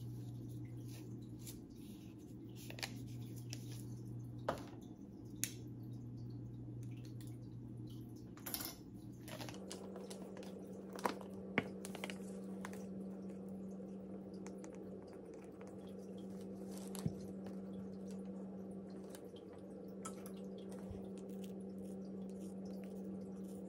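Aquarium filter running with a steady hum and a trickle of water; the hum changes pitch about ten seconds in. Over it, a scattering of light clicks and taps from plastic measuring spoons and a fish-flake container being handled.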